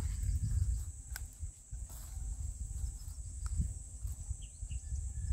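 Teeth gnawing at a twisted aluminium wire cable, with a few faint clicks of the strands. Under it, a low, uneven rumble of wind on the microphone and a steady high insect buzz.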